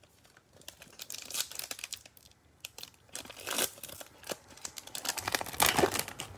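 Foil wrapper of a trading-card pack crinkling in gloved hands and being torn open, in crackly bursts that grow loudest near the end.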